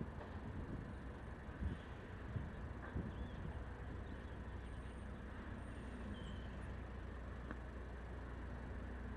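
Street traffic: a steady rumble of vehicles on a city road, with a few soft knocks in the first three seconds and a low hum that grows in the second half.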